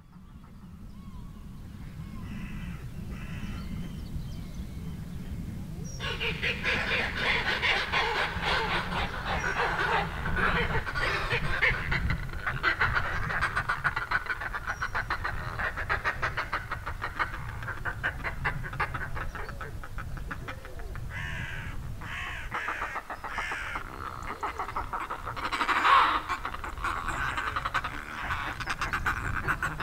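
Many seabirds calling together at a cliff colony, a dense chorus of calls that starts about six seconds in and peaks near the end, over a steady low rumble.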